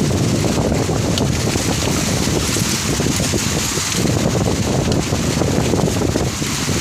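Strong storm wind gusting and buffeting the microphone, with a steady hiss of rain.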